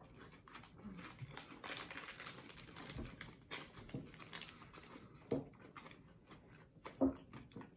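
Candy wrapper crinkling and crackling as it is handled, a dense run of small crackles with a couple of brief louder knocks near the end.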